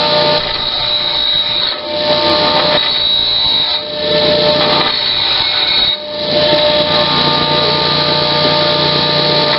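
Power grinder, most likely an angle grinder, running steadily with a high whine as it cleans up the cut edges of steel pieces. The sound dips briefly three times as the tool eases off the work.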